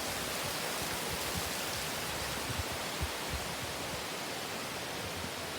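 Heavy mountain rain with runoff pouring down like small waterfalls: a steady, even rush of falling water. A few soft low knocks come about halfway through.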